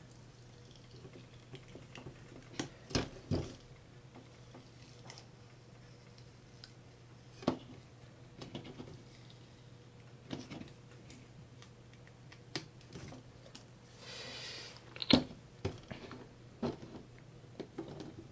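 Fingernails picking and scratching at a sticker on a mixer's painted top plate: scattered small clicks and scrapes, with a short raspy stretch of the sticker peeling back about fourteen seconds in and the loudest click just after.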